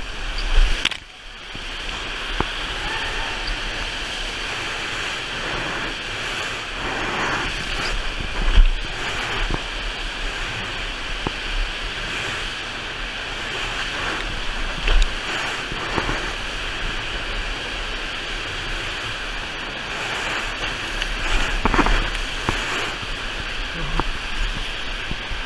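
Steady rushing water of a FlowRider sheet-wave machine, heard close up as the flowboard rider carves across the pumped water. A few sharp knocks and splashes cut through it, the loudest a little after eight seconds in, and the rush drops out briefly about a second in.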